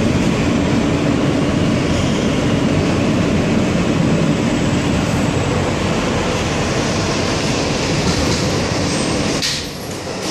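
Cabin noise of an R160 subway car running at speed in a tunnel: a steady, loud rumble of wheels on rail with a constant motor hum. The noise dips briefly near the end.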